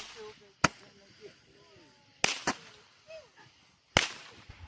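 Fireworks going off: four sharp bangs, a pair close together in the middle and one near the end, with faint voices between them.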